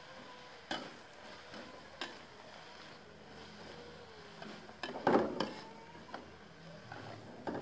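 Metal spatula knocking and scraping against a wok as sliced bitter gourd is stir-fried: scattered clanks, the loudest cluster about five seconds in, over a faint steady hiss.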